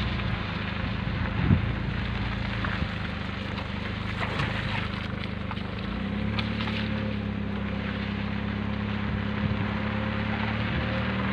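A vehicle engine running steadily as it drives along, with wind rushing over the microphone; the engine note shifts slightly about six seconds in.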